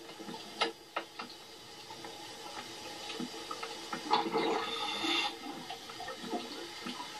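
Underwater ambience: gurgling, bubbling water with a few sharp clicks in the first second or so, and a louder rush of bubbles about four seconds in.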